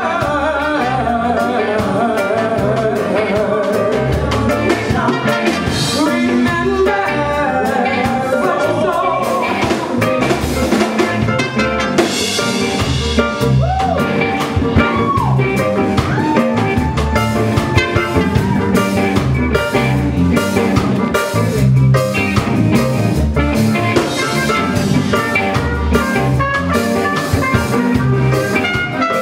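Live reggae band playing, with drum kit and bass keeping a steady beat and a voice singing over it.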